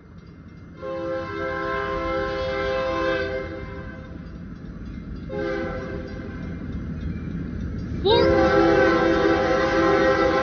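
Union Pacific diesel locomotive's air horn sounding a several-note chord for the grade crossing: two long blasts, then a third, louder one starting about eight seconds in, over the low rumble of the approaching train.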